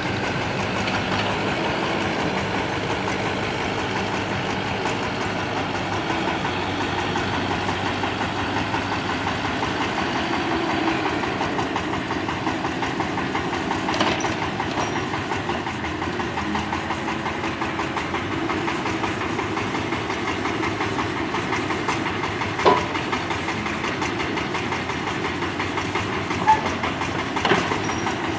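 Excavator's diesel engine running steadily, with a few short sharp knocks over it, the loudest about two-thirds of the way through.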